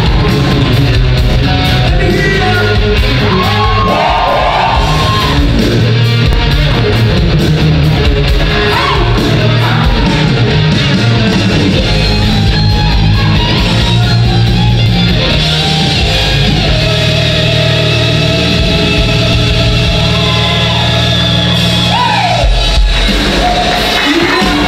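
A show choir singing over loud, amplified rock-style backing music, with shouted vocal lines, in a large hall.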